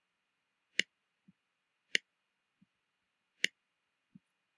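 Three sharp computer mouse clicks about a second and a half apart, each followed by a much fainter click, as code blocks are picked up and dropped in the editor.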